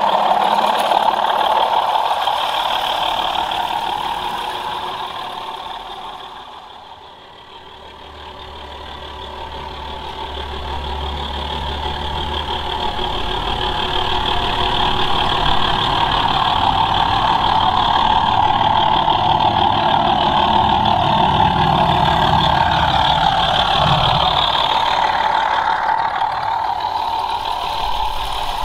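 Two sound-fitted OO gauge model class 24 diesel locomotives running in multiple, their onboard speakers playing a diesel engine sound. The sound fades as the train runs away, then grows louder again and holds steady as the train approaches.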